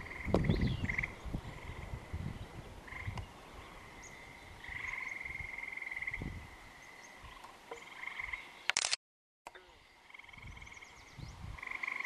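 Frogs calling at a lake: repeated trilled calls, one long trill about five seconds in, with wind rumbling on the microphone near the start. About nine seconds in there is a click and the sound drops out for half a second.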